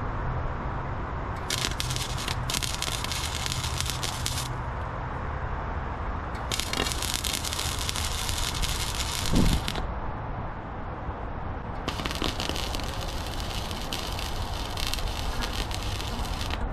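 Arc welding: three runs of crackling, sizzling weld beads, each lasting a few seconds with short pauses between, over a steady low background rumble. A short low thump sounds near the end of the second run.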